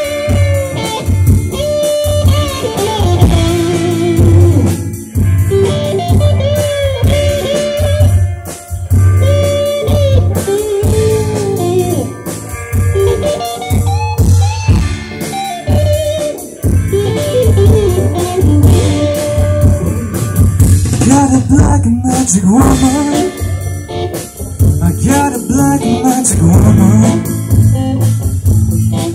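Live band playing a blues-rock song on electric guitars, bass guitar and drum kit, with a lead line that bends up and down in pitch.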